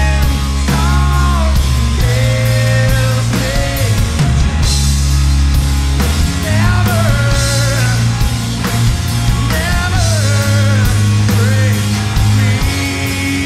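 Rock band playing live and loud: a singer's melodic vocal line over heavy bass, guitar and drums with cymbal hits.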